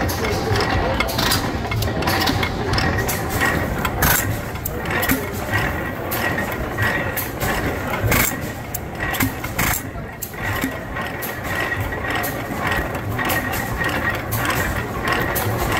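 Antique stationary gas engines running, a steady mechanical din broken by frequent sharp clicks and knocks from their valve gear and linkages.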